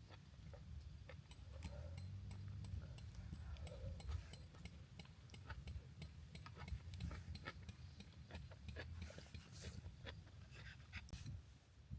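Faint, irregular small clicks and taps, with a run of quick light ticks in the first few seconds and a few hissy rustles near the end, over a low steady rumble.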